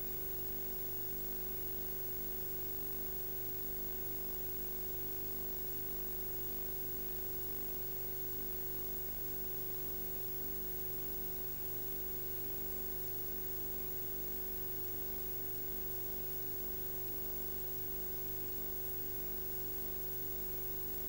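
Steady hiss with an electrical hum made of several constant tones, unchanging throughout, with no distinct sounds.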